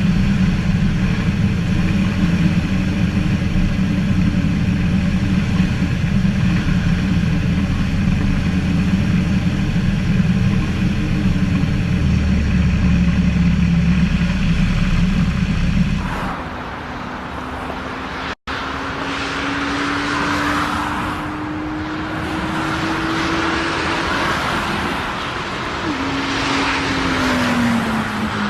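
Aircraft engine noise: a loud, steady low rumble, then after an abrupt change about two-thirds in, an engine whine that slowly rises in pitch and drops near the end.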